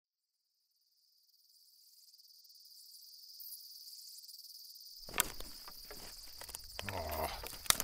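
Crickets chirring: a steady high trill that fades in from silence. From about five seconds in, rustling and sharp clicks join it, the loudest being a click about five seconds in and another near the end.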